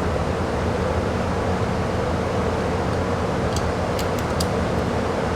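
Steady mechanical hum and rumble with a constant tone, and a few light clicks about three and a half to four and a half seconds in. No shots are fired.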